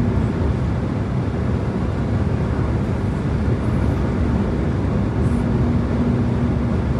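Steady in-cabin road and wind noise of a Citroën C4 Cactus 1.6 THP cruising at about 140 km/h on cruise control, with a faint steady hum under the tyre and wind noise.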